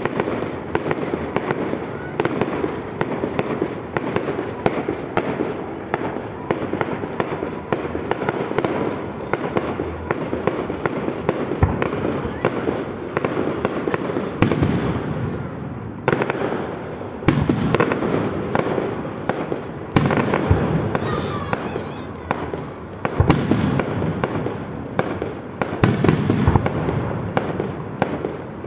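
Fireworks display: a constant crackle of many small bursts and shell bangs, with louder clusters of booms every few seconds in the second half.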